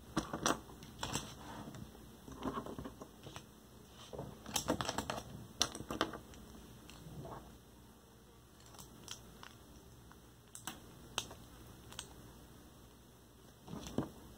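Plastic Lego bricks clicking and clattering as they are handled, snapped together and set down on a tabletop: irregular sharp clicks in scattered clusters.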